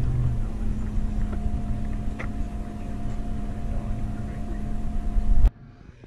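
A steady low rumble with a constant hum from some machine running, which cuts off suddenly near the end.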